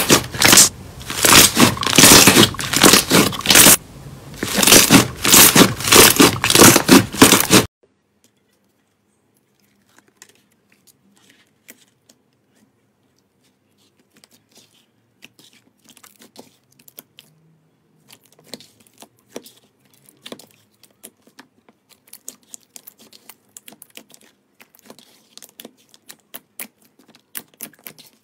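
Hands squishing and folding a soft pink slime, loud wet squishes at about two a second, cut off abruptly about eight seconds in. Then faint sticky clicks and pops as hands press and stretch a clear blue slime, coming more often toward the end.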